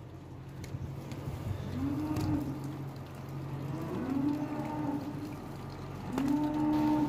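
Cattle mooing: three drawn-out calls a couple of seconds apart, the last the loudest.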